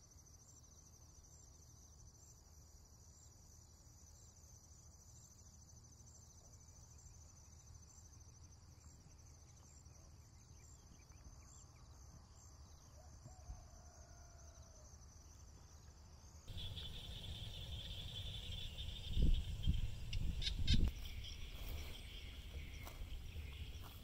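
Steady, high-pitched chorus of insects with a regular pulse, over a low rumble. About two-thirds through it changes abruptly to louder outdoor ambience with a lower insect buzz and a few deep thumps.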